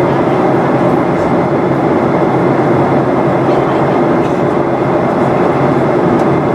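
Steady, loud cabin noise inside a Boeing 737-800 in flight: the rush of airflow and the hum of its CFM56-7B turbofan engines heard through the fuselage, with no change in level.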